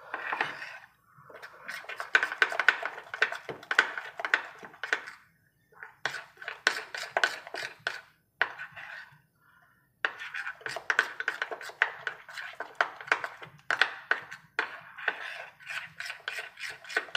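Metal spoon beating a thick gram-flour batter in a ceramic bowl, making fast clinks and scrapes against the bowl's side in quick runs of strokes with two short pauses. The batter is being beaten until smooth and lump-free.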